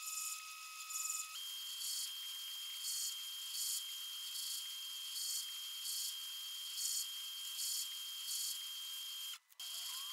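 Lathe screw-cutting a thread on a mild steel spindle, the lathe spindle turned by a hand crank. The threading tool gives a faint high scraping that pulses about once every three quarters of a second, over a steady thin whine.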